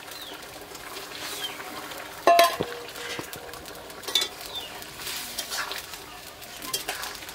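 Fish pieces being added to a potato curry cooking in a kadai, with a spatula stirring and scraping in the pan over a steady hiss from the pot; a loud clank about two seconds in and a smaller one about four seconds in.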